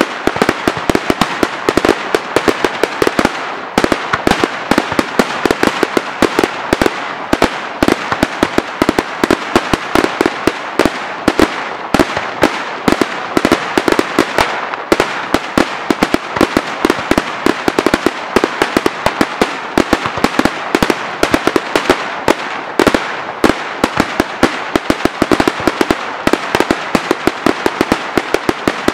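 Daytime fireworks display: a dense, continuous barrage of aerial shells bursting overhead, with sharp bangs coming many times a second.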